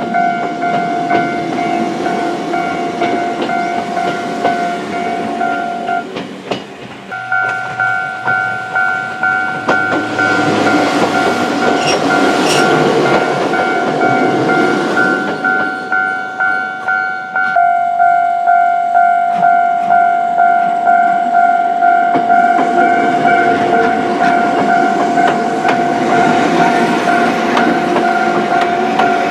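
Japanese level-crossing warning bell ringing in a steady pulsing rhythm, about one and a half strikes a second, while a Choshi Electric Railway train runs past over the crossing. The bell breaks off briefly about six seconds in, and the train's noise swells through the middle. Later the bell goes on at a slightly different pitch.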